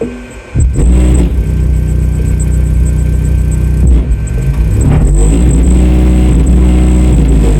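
Massive Audio GTX 15-inch subwoofer on a test bench, driven full tilt with a bass-heavy track: very loud deep bass with bass notes gliding up and down. The bass drops out for about half a second at the start, then comes back.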